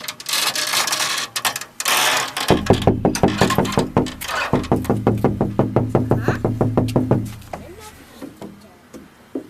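Fast, even thumping on hollow playground equipment, about five hits a second, each with a low ringing hum, after a brief clatter; typical of a child jumping or running on a bouncy deck or bridge. It fades out about three-quarters of the way through.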